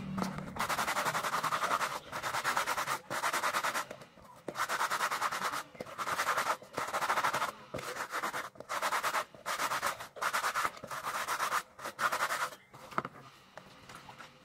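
A scrub brush scrubbing a soapy shoe in quick back-and-forth strokes. It comes in bursts of a second or so, about ten of them, with short pauses between.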